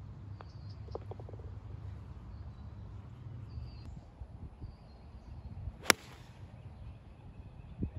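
A single sharp, clean crack of a golf club striking the ball off the tee, about six seconds in, over a steady low background rumble.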